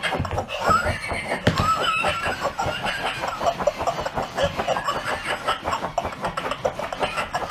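Laughing plush dog toy giving a long run of rapid, stuttering laughter.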